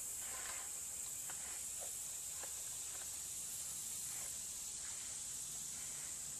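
Steady high-pitched chorus of insects, with a few faint light clicks and rustles from the trotline being pulled along by hand.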